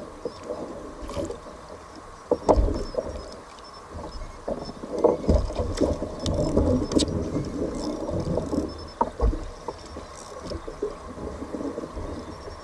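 A sea kayak on choppy water: waves splash and slosh against the plastic hull, with irregular knocks and bumps, the loudest about 2.5, 5 and 9 seconds in.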